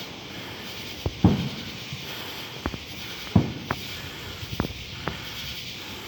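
Fireworks going off: about seven sharp bangs at irregular intervals. The two loudest are aerial shell bursts with a low rolling echo after them.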